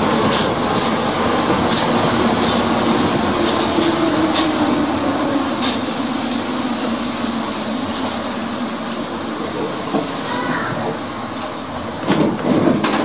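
Paris Métro MP 73 rubber-tyred train running along a viaduct, heard from the driver's cab: a steady rolling noise with a low hum and a light click about once a second. The noise grows louder and more uneven near the end.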